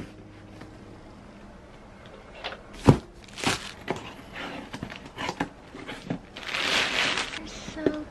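Household handling sounds: a few scattered knocks and clicks, the sharpest about three seconds in, then a rustle or crinkle lasting about a second near the end.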